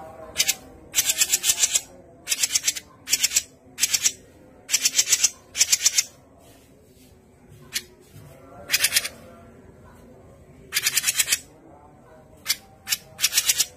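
Cucak jenggot (grey-cheeked bulbul) giving rapid, scratchy rattling chatter in short bursts of quick pulses, about a dozen bursts with brief pauses between them.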